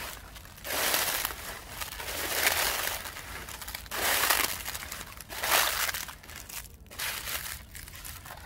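Footsteps crunching through dry fallen leaves, about five crackling steps roughly a second and a half apart.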